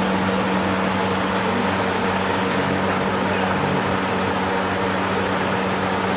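Large evaporative air cooler's fan running: a steady rush of air with a constant hum.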